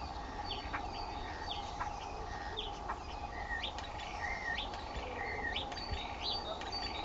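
Starlings giving a busy run of short chirps, whistled notes and quick up-and-down sweeps, over a steady background hum.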